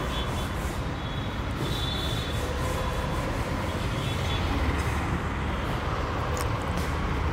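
A steady low rumble of background noise, with a few faint short clicks near the end.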